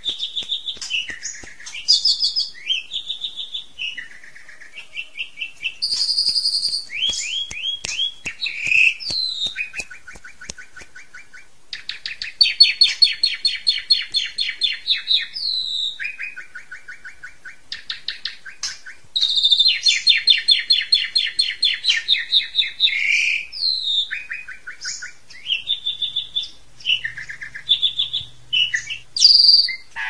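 Asian pied starling (jalak suren) singing a long, varied song packed with learned 'isian' phrases: whistles and chirps broken by fast rattling trills, with two long rapid trills in the middle and again in the second half.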